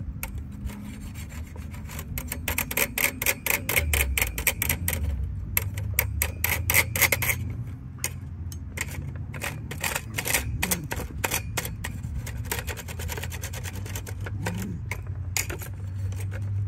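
Metal spatula scraping across the TOMSHOO stove's stainless wire-mesh grill grate, a fast rattling run of strokes over the wires that comes in several spells with short pauses.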